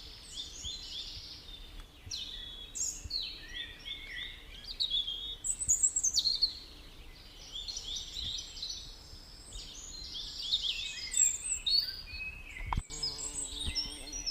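Several songbirds singing and chirping at once, a dense chorus of quick overlapping twitters and warbles. A single sharp knock sounds near the end.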